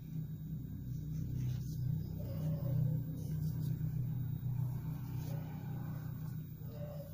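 A steady low rumble, with faint rustling as a cloth is handled and folded.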